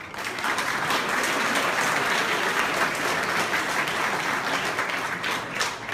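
An audience applauding: dense, steady clapping that breaks out at once.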